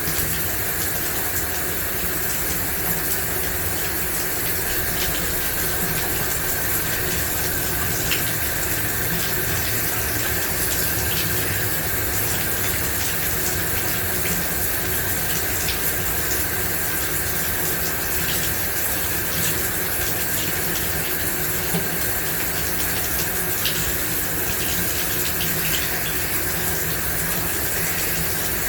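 Shower running steadily: an even hiss of water spray, with faint scattered taps of drops.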